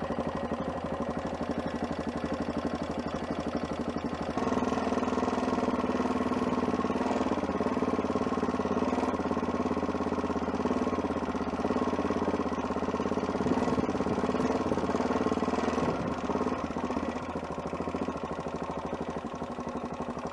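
Adventure motorcycle's engine running steadily with the bike under way; the engine gets louder about four seconds in and eases back near the end.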